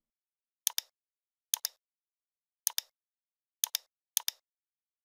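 Computer mouse button clicked five times, mostly about a second apart. Each click is a quick double tick of press and release.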